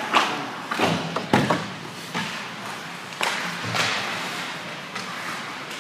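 Ice hockey play at close range: a run of sharp knocks and bangs from sticks, the puck and the boards, about seven in a few seconds, the loudest about a second and a half in, over the steady hum of the rink.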